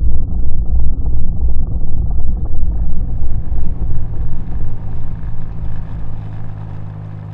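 BMW R100R air-cooled flat-twin (boxer) engine running, a loud pulsing rumble that sounds muffled at first and grows clearer. Near the end it eases off into a steadier, lower-level hum.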